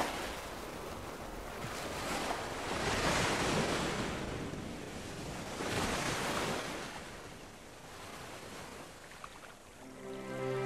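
Wind rushing over the microphone in gusts that swell and fade every few seconds. Music comes in near the end.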